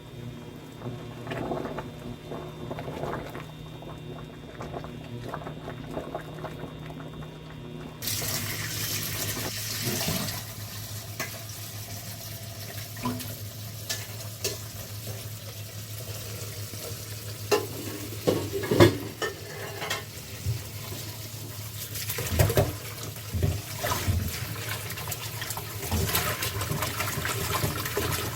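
Scattered light clicks and knocks over a low hum. About eight seconds in, a steady rush of running water starts abruptly and carries on, with knocks and clatter over it.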